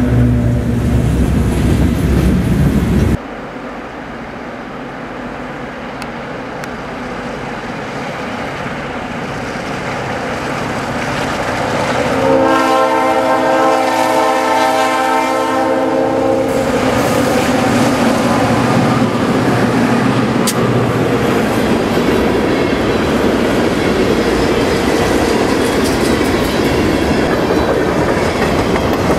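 Diesel freight train passing with its locomotive engines running low, cut off sharply about three seconds in. A second freight train then grows louder as it approaches, sounds one long horn blast of about four seconds near the middle, and its locomotives and freight cars roll past with clickety-clack over the rail joints.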